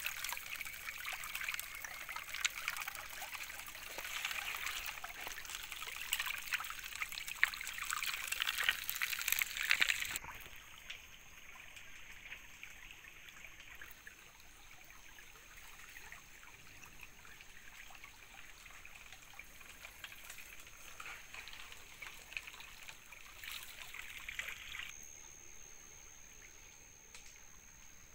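Shallow stream water rushing and splashing over gravel, with hands stirring in the water. About ten seconds in it cuts abruptly to a quieter trickle with a faint steady high whine.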